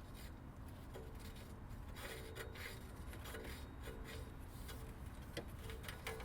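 Oxygen sensor being unscrewed by hand from a Jeep TJ's exhaust pipe. Its threads make faint, repeated scraping strokes in the bung, with short squeaks between them.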